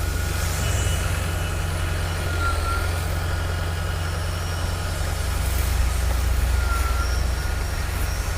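A heavy engine, likely construction machinery, running steadily with a low drone. A faint thin whine sits above it and dips briefly twice.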